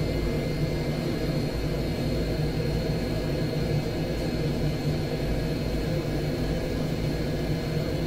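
Heatline combi boiler firing at full rate on hot-water demand, its fan and burner giving a steady hum. This is the sign that the dried-out flow sensor is now detecting the running hot tap.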